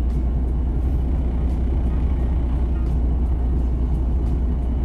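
Steady low rumble inside the cab of a Freightliner Cascadia semi truck with its Detroit DD15 diesel running.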